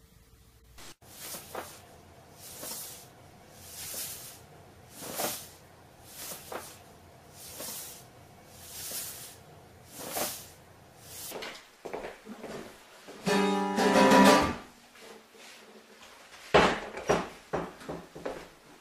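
A soft hiss repeating about once a second, then an acoustic guitar sounding a loud ringing chord for about a second and a half, followed by a rapid run of sharp knocks as the guitar is handled.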